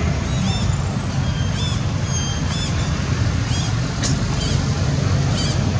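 Steady low outdoor rumble with short, high chirps repeating about once a second, and a single sharp click about four seconds in.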